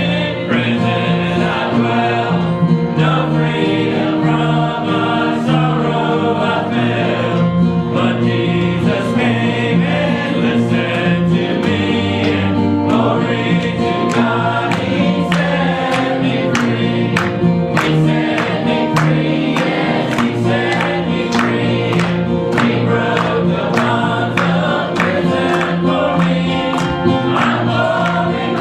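A church congregation singing a gospel hymn together with instrumental accompaniment, the accompaniment striking a steady beat.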